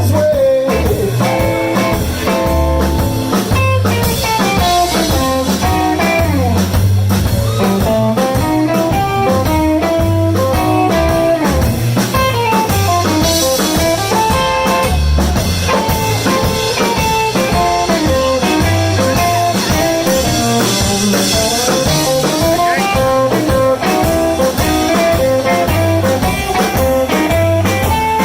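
Live blues band playing an instrumental passage: electric guitar soloing over bass and drum kit.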